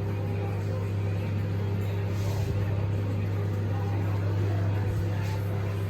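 Microwave oven running, a steady low electrical hum, with a couple of faint brief hisses.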